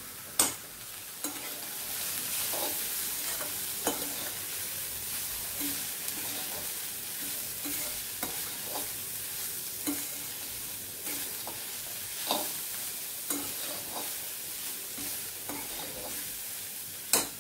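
Shredded cabbage, capsicum and grated carrot sizzling in a metal kadhai while a steel spatula stirs and tosses them, scraping and clinking against the pan. Sharper knocks come about half a second in and again near the end.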